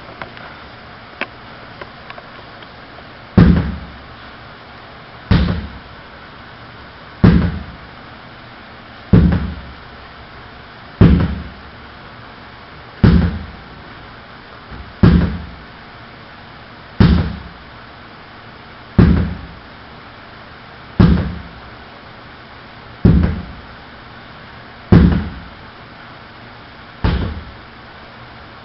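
Sledgehammer strikes: heavy, deep thuds at an even pace of about one every two seconds, thirteen of them, each with a short ringing decay. A few light clicks come before the first blow.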